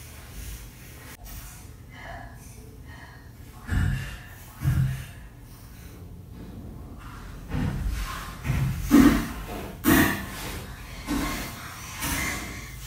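A woman breathing hard and gasping in pain, in irregular bursts that come closer together and louder in the second half: the cramps and spasms of chronic pain.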